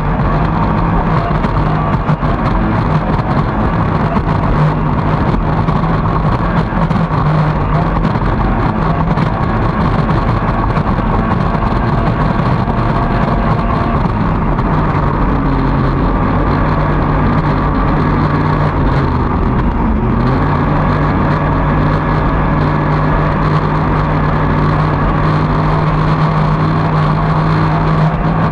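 Outboard motor of a T850-class racing boat running hard at speed, heard onboard with wind and water spray rushing past. The engine note drops briefly about halfway through and again about two-thirds through, then climbs back and holds steady to the end.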